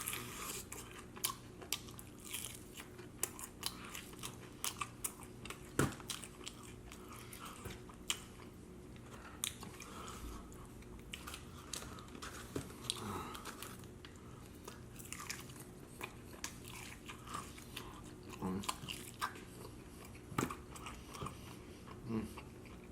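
Close-miked eating of sauced Wingstop chicken wings: wet chewing, smacking and biting, with many short irregular clicks. A steady low hum sits underneath.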